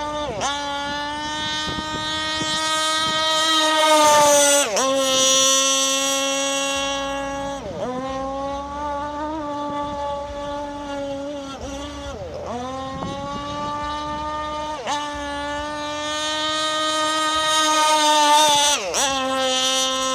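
Newly modified G300 two-stroke gas engine of a radio-controlled deep-V boat running at high revs, a high steady buzz. It dips briefly about eight times as the throttle is eased through turns, and is loudest about four seconds in and again near the end.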